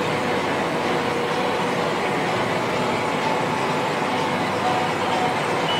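Massey Ferguson 7626 tractor's diesel engine running steadily, heard from inside the cab, with a faint steady whine over the engine noise.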